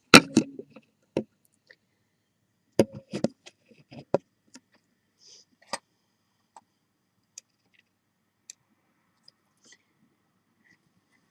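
Clicks and knocks of small objects being handled and set down on a jeweller's bench: a loud knock right at the start, a cluster of knocks about three to four seconds in, then scattered single clicks.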